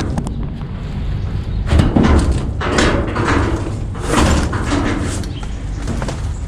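Cardboard boxes being handled and pulled open inside a steel dumpster: a few loud thuds and knocks against the metal, with rustling and scraping of cardboard flaps.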